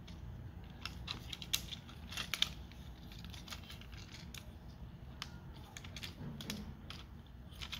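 Plastic parts of a Transformers Legacy United Sandstorm action figure being handled and pegged together: scattered light clicks and clacks at irregular intervals as pieces are pushed into place.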